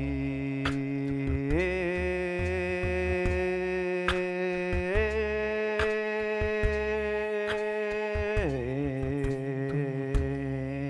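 Voices toning together on long held notes, a sustained hum-like tone that steps up in pitch twice and then drops back near the end.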